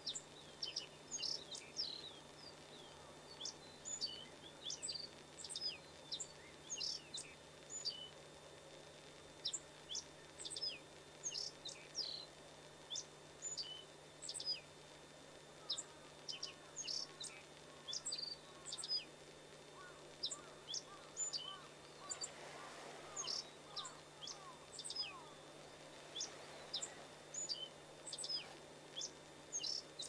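Black-faced bunting singing: short phrases of high, thin chirping notes repeated every second or two, with other bird notes mixed in. Lower, sliding notes join about two-thirds of the way through, and a faint low hum runs underneath.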